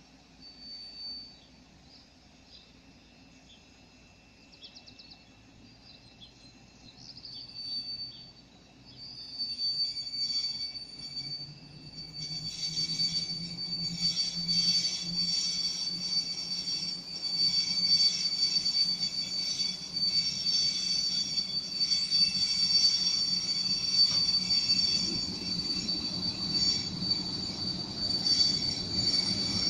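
EU07 electric locomotive hauling a passenger train with its brakes not released: dragging brake shoes make a steady high-pitched squeal on the wheels. The squeal grows loud from about nine seconds in as the train nears, with a low hum from the locomotive underneath from about eleven seconds in.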